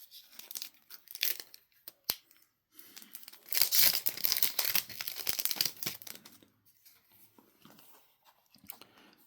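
Foil wrapper of a Yu-Gi-Oh! booster pack being torn open and crinkled: a few light crinkles first, then a longer tearing and rustling of the foil about three and a half seconds in, lasting a couple of seconds.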